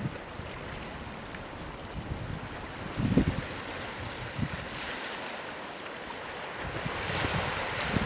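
Wind blowing over the microphone, with a couple of short low buffets about three and four and a half seconds in, over a steady wash of small waves on the lake.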